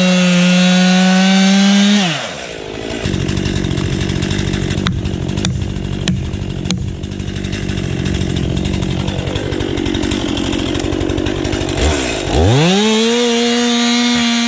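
Stihl MS 261 two-stroke chainsaw at full throttle. About two seconds in, its pitch drops as the sharp, hand-filed chain bites into a log, and it cuts under load for about nine seconds. It then comes out of the cut, screams back up to high revs, and winds down near the end.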